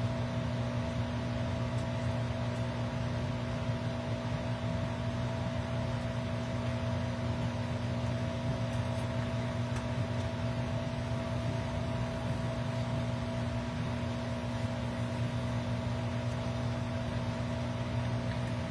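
Steady electric hum of the over-the-range microwave's vent fan above the stove: a constant low drone with a few steady tones and even airy noise, unchanging throughout.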